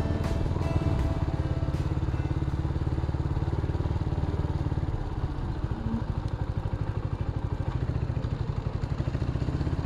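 Motorbike engine running at low speed as the bike rolls in slowly, settling about five seconds in into a fast, even idle beat.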